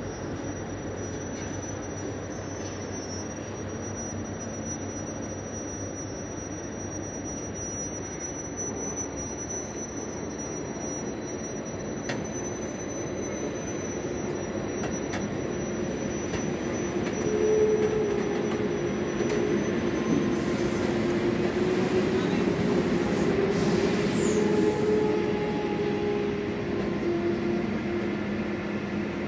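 Passenger coaches rolling slowly past on the rails, drawn by an ÖBB class 2070 diesel locomotive, with a steady rumble and wheel squeal. The squeal grows louder about two-thirds of the way through, and a thin high whine stops around the same time.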